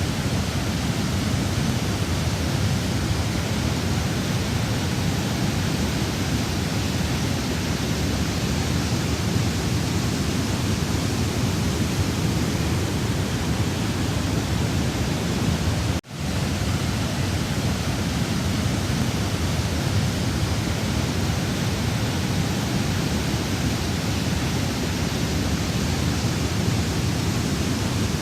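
Rushing floodwater in a river: a steady, heavy roar of turbulent water. It cuts out for an instant about halfway through and comes straight back.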